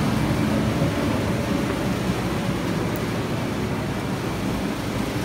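Steady wind rumbling and buffeting on the microphone, a low noise that holds at much the same level throughout.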